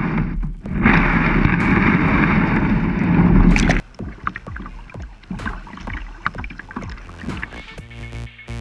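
A loud, steady rush of wind and water noise on a camera microphone at sea level, which cuts off suddenly about four seconds in. It is followed by quieter lapping and small splashes of seawater against the camera, with music starting near the end.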